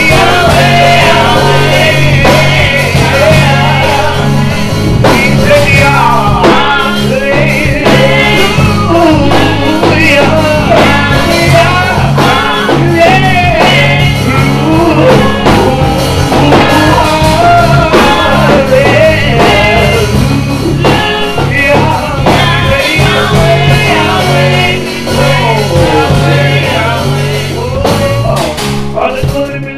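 Church choir singing a gospel song over band accompaniment, loud and continuous.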